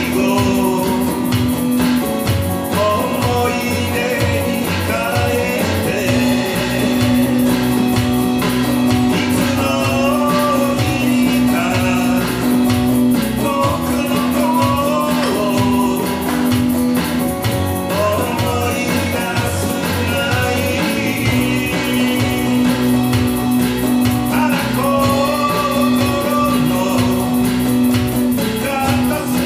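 Live band playing a slow pop ballad: strummed acoustic guitar, electric guitar and an electronic drum kit, with a man singing the melody.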